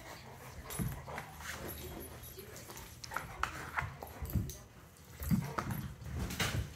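Two dogs play-fighting: short, irregular dog vocalisations with scuffling, coming in bursts about a second in and again through the second half.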